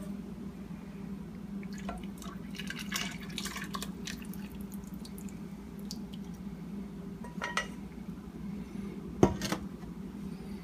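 Reduced cream poured from a saucepan into a pot of soup, with a spatula scraping and tapping the saucepan in small scattered scrapes and clicks, and one sharp knock about nine seconds in. A steady low hum runs underneath.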